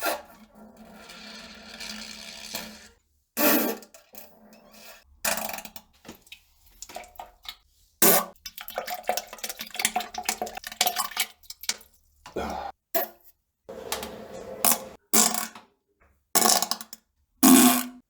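A string of fart and pooping sound effects. It opens with one drawn-out, buzzing fart of steady pitch lasting nearly three seconds, followed by many shorter sputtering bursts, each cut off into dead silence.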